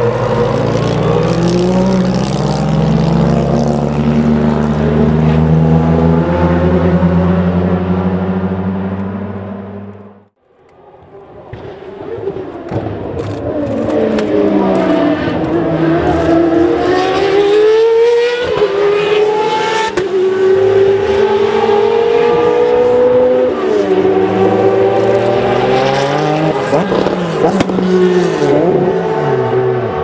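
A Nissan Group C prototype's engine fades away as the car drives off, then the sound cuts out suddenly about a third of the way in. A Peugeot 905's V10 engine then approaches and passes at racing speed, its pitch rising and falling several times with the revs and gear changes.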